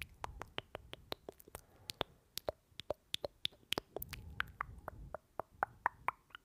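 Lip gloss applicator wand pumped in and out of its tube close to the microphone, making a rapid run of sticky wet clicks and pops, about five a second.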